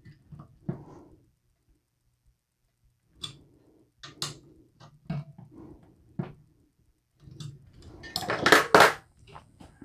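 Small metal hand tools, an Allen key and a screwdriver, clicking and knocking against a rifle's handguard and a tabletop while M-LOK mount screws are tightened. The loudest clatter comes about eight seconds in, as the tools are set down among a set of hex keys.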